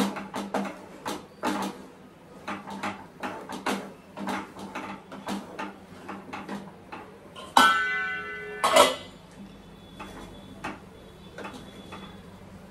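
Spatula scraping and tapping against a frying pan in quick, irregular strokes as food is stirred. A little past halfway a loud metal clank rings out briefly, followed by a second loud knock about a second later.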